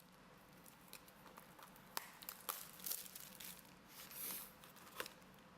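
Faint, scattered crinkles and light clicks of a trading-card booster box and its plastic wrap being handled and opened.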